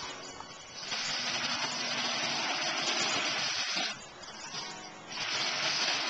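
Aerosol spray-paint can hissing in two long bursts as black paint goes onto the panel. The first burst starts about a second in and lasts about three seconds. After a short pause, the second burst starts about five seconds in.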